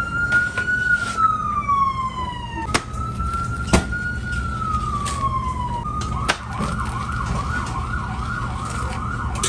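Emergency vehicle siren wailing slowly up and down, then switching to a fast yelp about six seconds in. A few sharp knocks and a steady low hum run underneath.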